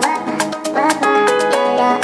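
Electronic dance music from a DJ mix: pitched melodic and bass notes over a steady beat with crisp percussion hits about three to four times a second.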